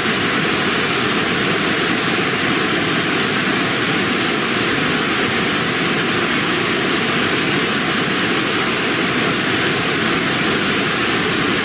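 Steady roar of rushing water, even and unbroken, like a waterfall.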